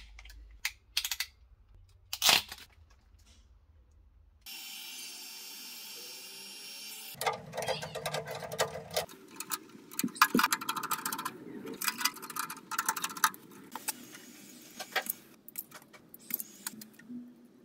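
Small metal clicks and rattles of hand work on electrical wiring: wires with crimped ring terminals being handled, a screwdriver turning terminal screws, and a wire stripper clicking. A stretch of steady hiss comes about a third of the way in.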